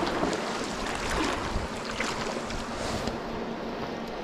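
Shallow stream water running over stones, with wind buffeting the microphone and a few brief louder rushes.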